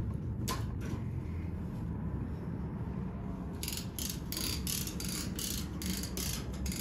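Consew 339RB-4 two-needle walking foot industrial sewing machine running and stitching through fabric: a steady low running sound, a single click about half a second in, and from about halfway a regular high clicking about four times a second, one per stitch. The machine is still making a little of the noise that is being adjusted out.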